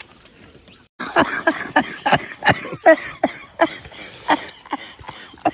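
A person coughing in a rapid run of short, sharp coughs, starting about a second in.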